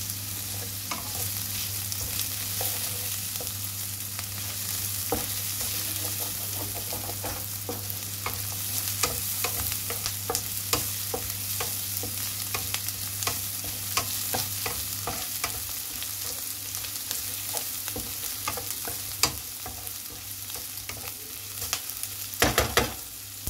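Chopped onion, ginger and garlic sizzling in oil in a frying pan, with a wooden spatula clicking and scraping against the pan as it stirs. There is a louder flurry of scraping near the end.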